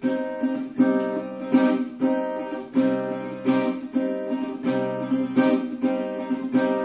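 Cutaway acoustic guitar with a B minor barre chord at the 2nd fret, strummed again and again in a steady rhythm, about one strum every three-quarters of a second.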